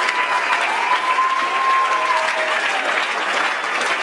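Audience applauding loudly, a dense patter of many hands clapping, with a few long, high cheers held over it.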